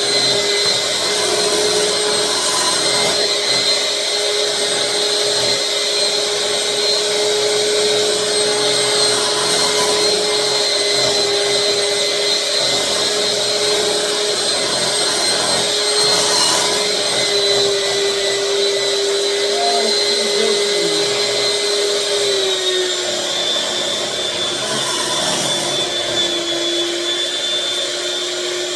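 Countertop blender running steadily at speed, blending a thick pumpkin pie filling of canned pumpkin, cream cheese and brown sugar, with a steady motor whine. The motor pitch drops slightly a little over twenty seconds in.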